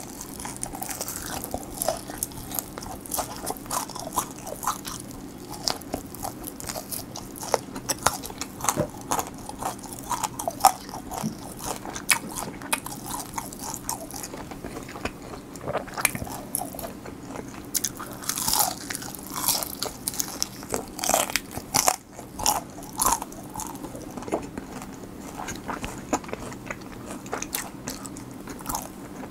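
Close-miked biting and chewing of crispy honey butter garlic fried chicken: dense, irregular crunches and crackles of the fried crust. Near the end a cube of pickled radish is bitten with a crunch.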